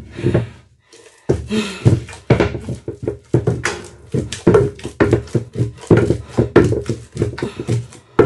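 Wooden pestle working pounded yam in a wooden mortar: a quick, uneven run of strokes, about three a second, after a short pause about a second in. The pestle is mashing added water into the finished pounded yam, no longer pounding it.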